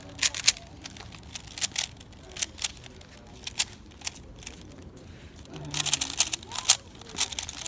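A 3x3 speedcube being turned fast during a timed solve: a rapid, irregular clatter of plastic layer turns in quick runs, busiest near the end.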